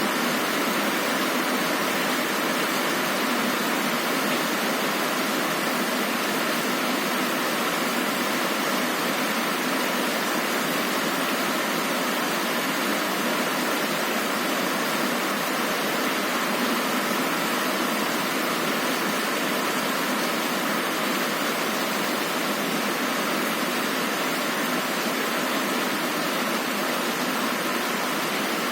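Heavy rain falling as a steady, even hiss, with no thunder.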